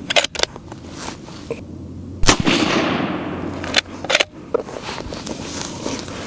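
A suppressed .308 Winchester Sig Cross bolt-action rifle fires one shot a little over two seconds in, followed by a long fading echo. Sharp metallic clicks of the bolt being worked come just before and about a second and a half after the shot.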